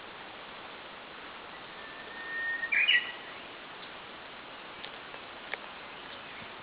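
A Japanese bush warbler (uguisu) singing its "hoo-hokekyo" song once: a long held whistle that swells, then a quick rising flourish about three seconds in.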